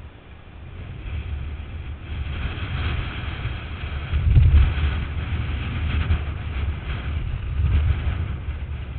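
Wind buffeting the microphone in gusts, loudest about four and a half seconds in and again near the end, over the rushing of whitewater in a river rapid.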